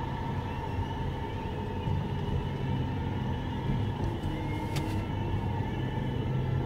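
Car driving, with a steady low engine and road rumble and a faint steady tone above it. A single short click comes about five seconds in.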